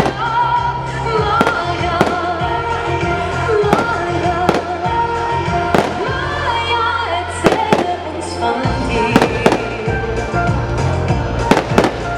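Fireworks going off in a string of sharp bangs, roughly one every second, over loud show music.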